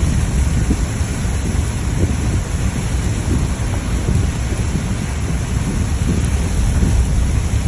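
Heavy, steady rain pouring down, with a dense low rumble underneath that never lets up.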